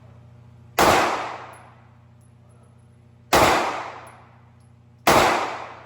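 Three gunshots at an indoor shooting range: about a second in, midway, and near the end, each a sharp crack followed by an echo that fades over about a second.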